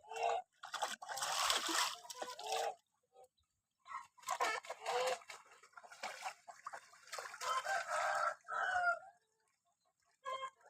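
Lion-head geese honking repeatedly, in two long runs of overlapping calls and one short call near the end.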